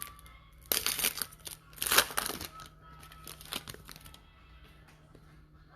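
Wrapper of a 2020 Certified Football trading-card pack being torn open and crinkled: sharp crackly bursts in the first couple of seconds, tapering off by about four seconds in.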